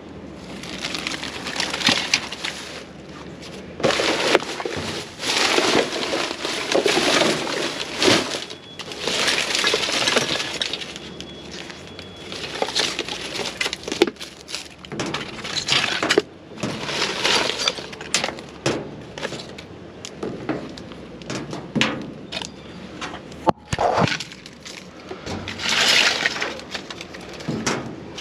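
Irregular crunching, scraping and clattering of scrap being handled, in repeated bursts of a second or two with sharp clicks and knocks between them.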